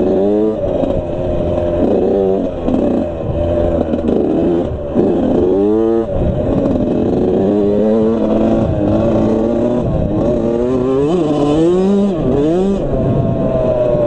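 Suzuki RM85's 85cc two-stroke single-cylinder engine revving hard and dropping back over and over as the dirt bike is ridden, its pitch climbing and falling with throttle and gear changes.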